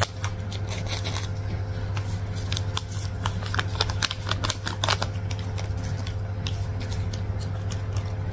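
Scissors snipping open plastic instant-noodle seasoning sachets, with many small crinkles and rustles of the packets throughout, over a steady low hum.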